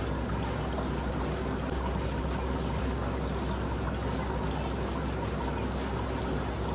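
Water running and pouring steadily, without a break, as during cleaning with water.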